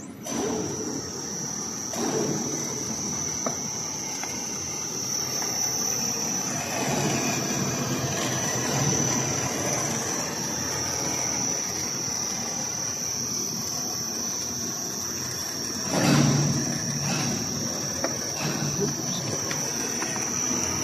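Spiral duct forming machine running, rolling sheet-metal strip into spiral-seamed round duct: a steady high-pitched whine over continuous mechanical rumble and rattle, with a louder bang about sixteen seconds in.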